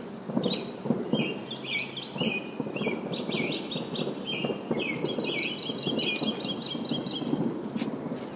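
Distant fireworks rumbling and popping, with a bird singing strings of quick, high, repeated chirping phrases over them.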